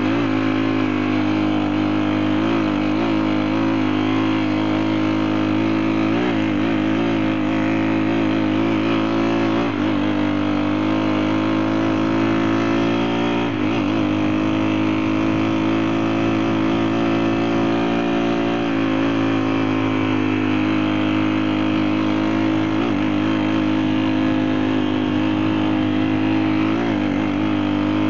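Small 35 cc four-stroke engine of a motorized mountain bike running at a steady speed, its pitch dipping and rising slightly every few seconds.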